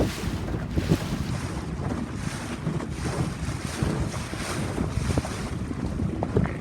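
Wind buffeting the microphone on a small boat out on the sea, with the wash of water and waves underneath; the gusts come and go unevenly.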